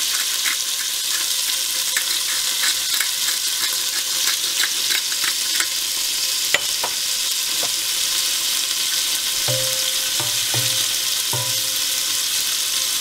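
Small pieces of beef steak sizzling in hot oil in a stainless steel pot: a steady frying hiss with many small crackles. In the second half a wooden spoon stirs the meat, adding a few clicks and scrapes against the pot.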